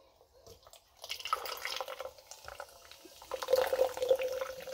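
Soda pouring and dripping in irregular splashes from a partly frozen can into a plastic cup, most of the drink still ice. It starts about a second in and is heaviest near the end.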